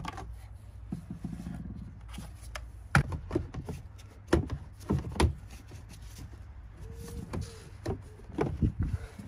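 Plastic air filter housing and its pleated paper filter element being handled: a series of sharp plastic clacks and knocks as the lid is lifted off and the element is pulled out, over a low steady rumble.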